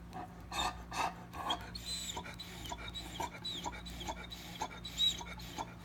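A Great Dane panting, with breathy bursts in the first second and a half, then softer breaths and a few faint high whimpers.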